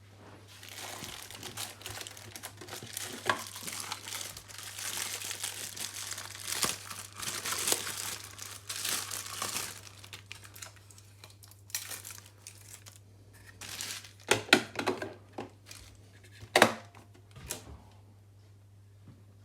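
Packaging crinkling and tearing as it is handled and pulled open, continuous for about ten seconds. It is followed by a few sharp knocks and clicks, the loudest of them around two-thirds of the way in, as pieces are set down or handled.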